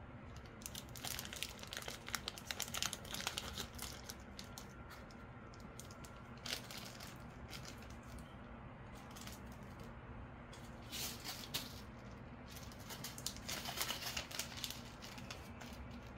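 A small clear plastic zip bag being handled, crinkling in several short bouts of rustling with quieter gaps between.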